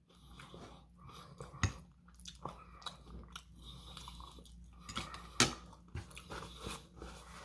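A person chewing food close to the microphone, fairly quiet, with irregular sharp clicks and smacks and a few louder clicks scattered through.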